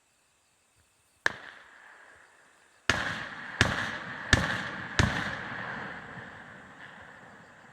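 Fireworks shells bursting: one bang, then four more in quick succession about two-thirds of a second apart, each trailing off in a long rolling echo. Faint steady insect chirring runs underneath.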